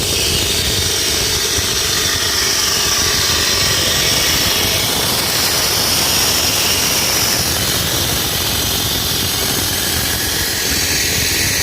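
Concrete cutting machine running steadily with a continuous high whine.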